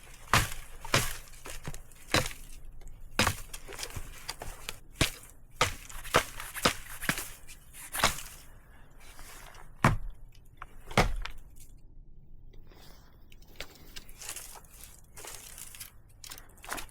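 Close rustling and scraping with irregular sharp knocks and clicks, from someone moving about and handling kit. The knocks come thickest in the first half, with the loudest two about ten and eleven seconds in.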